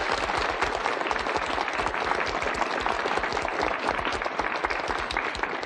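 Studio audience applauding, a dense steady clapping that fades out at the end.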